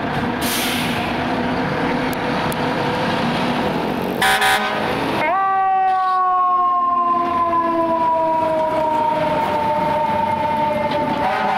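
Fire truck's engine rumbling as it pulls out, with a brief hiss near the start and a short air horn blast about four seconds in. Then a mechanical siren winds up quickly and slowly winds down in pitch, and is pushed up again near the end.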